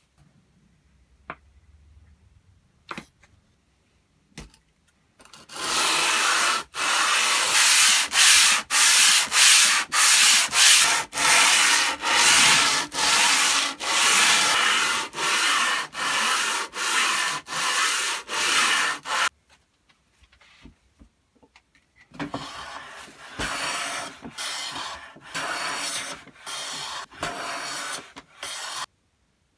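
A cast-iron hand plane body rubbed back and forth on abrasive paper to flatten it, in steady strokes of about one and a half a second. After a short pause come quieter strokes at a similar pace as the plane is pushed along a board, cutting shavings.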